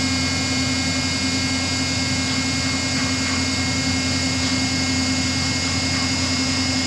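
A ship's hydraulic deck crane running steadily while it is operated slowly: a constant machine hum with several steady high-pitched whines over it.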